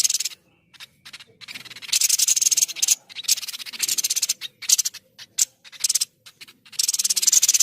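White-breasted babbler (tepus dada putih) singing: rapid, high-pitched chattering trills in short bursts, one after another.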